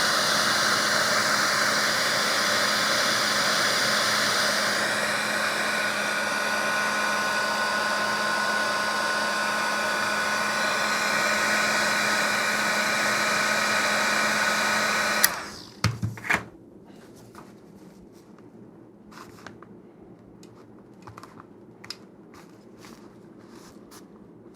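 Heat gun running steadily with a constant hum, blowing hot air onto a Kydex holster to soften it for reshaping. It switches off about fifteen seconds in, and a few light clicks and taps of handling follow.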